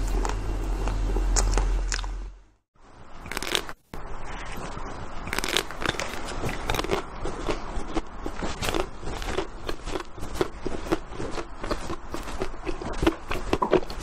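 Close-up biting and chewing of hard-frozen ice cream with a crisp black coating: a dense run of small crunching cracks and clicks. Softer eating with a low hum comes before a brief drop-out about three seconds in.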